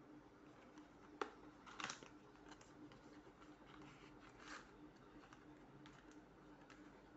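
Faint handling of a small paperboard box being opened by hand: scrapes and taps of the cardboard and its inner tray, with a sharp click about a second in and a louder rustle just after.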